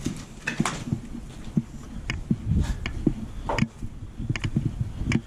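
Footsteps crunching on sand, grit and broken debris: a run of irregular walking steps with sharp crunches and scuffs.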